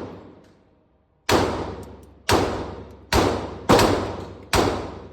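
Five single gunshots fired at a steady, unhurried pace, roughly one a second, each followed by a long echoing decay.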